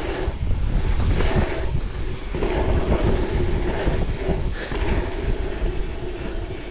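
Wind buffeting the microphone over the noise of mountain bike tyres rolling on a tarmac pump track, a steady low rumble throughout.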